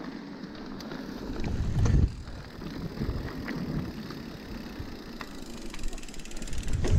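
Mountain bike rolling along a dirt and gravel trail: tyre noise with rattles and small knocks from the bike. A low rumble swells louder about two seconds in and again near the end.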